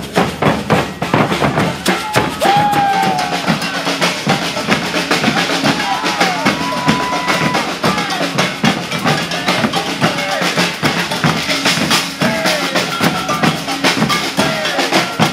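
Maracatu percussion group playing a dense, driving rhythm on alfaia bass drums, snare drums and other percussion.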